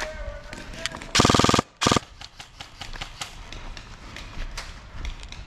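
Airsoft gun firing a fast full-auto burst of about half a second, about a second in, followed by a very short second burst, with faint scattered shots around them.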